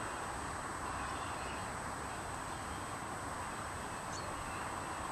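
Steady outdoor background hiss with no distinct events, and a faint constant high-pitched whine over it.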